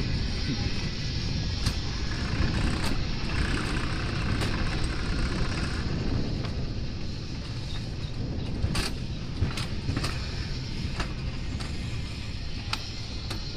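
Alpine coaster sled running down its steel tube track: a steady rumble of the wheels on the rails, with sharp clicks every second or so.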